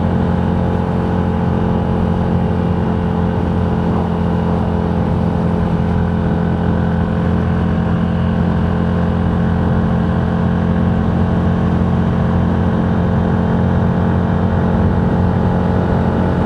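Steady drone of a moving road vehicle: engine and road noise holding an even low hum without change.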